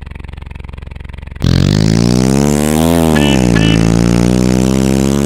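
Engine sound effect for a cartoon fire truck. A low steady idle, then about a second and a half in the engine revs up loudly, rising in pitch until about three seconds and falling as it pulls away, fading near the end. Two short high beeps come a little after three seconds.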